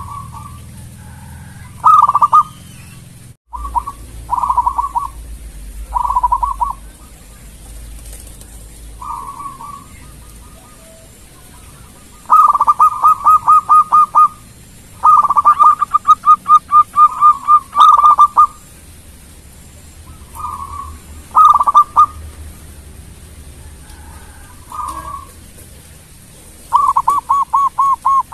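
Zebra dove (perkutut) cooing: repeated phrases of quick staccato coos, some short and some in rapid runs lasting a couple of seconds, with pauses between.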